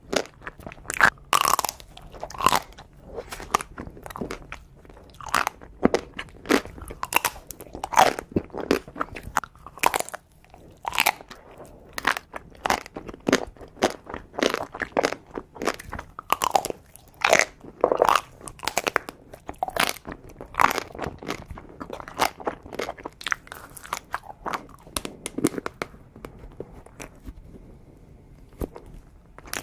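A person eating chocolate desserts close to the microphone: a rapid run of crisp crunches and bites with chewing between them, the crunches coming less often over the last few seconds.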